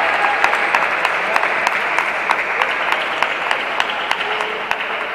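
Spectators applauding, a dense patter of clapping that slowly fades toward the end.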